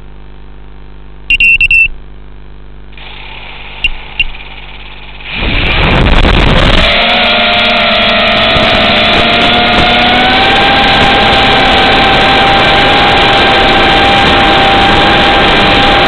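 Eachine Racer 250 racing quadcopter heard from on board: a burst of beeps about a second in and two short beeps near four seconds, then its motors and propellers spin up about five seconds in and run loud with a steady whine.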